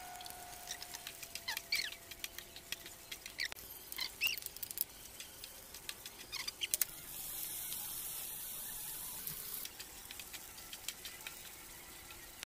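Wooden spatula scraping and tapping against a nonstick frying pan as rice is stir-fried, with quick clicks and a few short squeaks. A high sizzling hiss rises for a couple of seconds past the middle.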